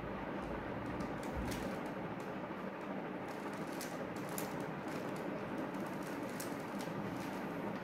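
A plastic Rubik's cube being turned quickly in the hands: irregular light clicks as its layers snap round, over a steady background hiss.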